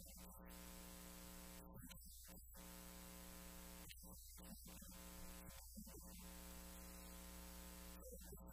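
Near silence apart from a steady electrical mains hum and hiss in the recording. The hiss cuts out briefly a few times.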